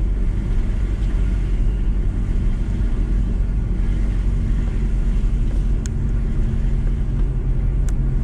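VW T4 campervan driving at a steady pace, its engine and road noise making a steady low rumble heard from inside the cab.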